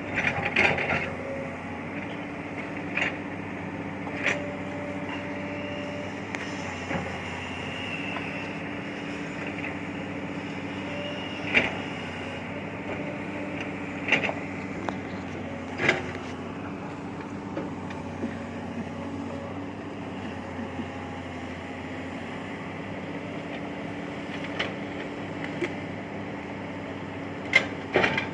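Large excavator's diesel engine running steadily, with sharp metallic clanks now and then as the machine works.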